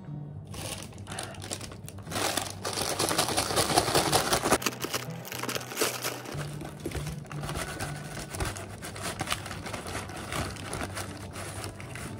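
A KFC paper fries bag crinkling and rustling as it is handled, loudest for a couple of seconds starting about two seconds in. Seasoned fries are then shaken out of the bag, all over steady background music.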